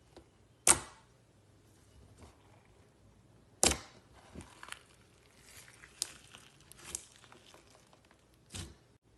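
Slime being squeezed and poked by hand, giving sharp pops, the loudest about a second in and again near four seconds, with smaller crackles and pops between and one more pop near the end.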